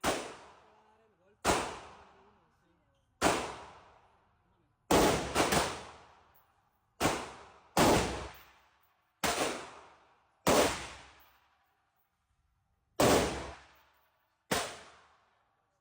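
A gun fired one round at a time in single-shot mode: about eleven separate shots at uneven gaps of roughly half a second to two and a half seconds. Each shot rings on and dies away over about a second.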